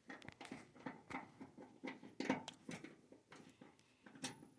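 A run of irregular light clicks and taps, several a second, of small hard objects being handled.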